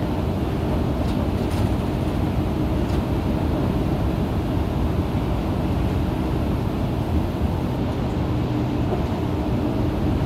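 Cabin sound of an Isuzu KL-LV280N1 city bus: its diesel engine and running noise, steady throughout with a constant low drone and a few faint ticks early on.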